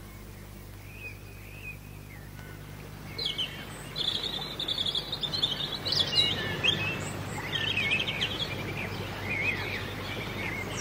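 Small birds chirping and twittering over a low steady hum. A few faint chirps come about a second in, and the chirping grows dense from about three seconds in.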